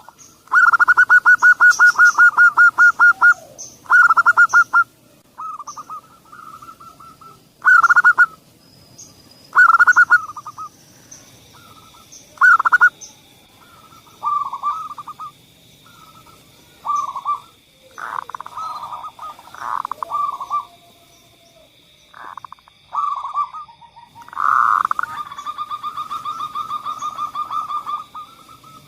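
Zebra doves (perkutut) cooing in repeated phrases, each a fast pulsed trill or a short run of coos, with brief pauses between them. A faint steady high tone runs beneath from about the middle on.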